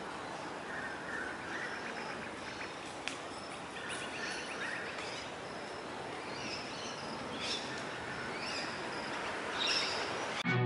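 Steady outdoor background noise with small birds chirping on and off, and a single sharp tick about three seconds in.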